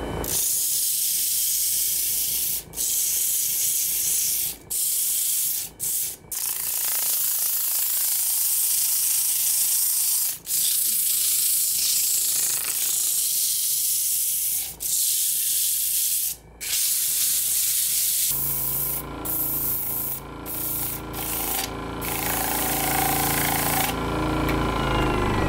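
Sandpaper held by hand against a wooden vase spinning on a woodturning lathe: a steady hiss of sanding, broken by a few brief gaps where the paper lifts off. In the last third the lathe's motor hum comes through under the sanding.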